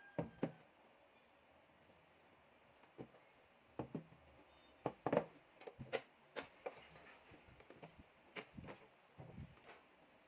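Irregular light clicks and knocks, about a dozen, of desktop computer parts being handled during a hardware upgrade.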